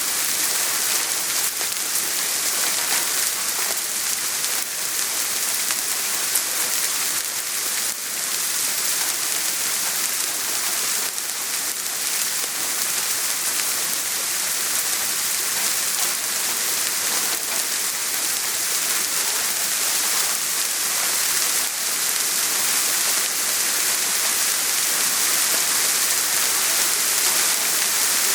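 Soft rain falling steadily, a dense even hiss of many small drops with faint patters of individual drops on a surface.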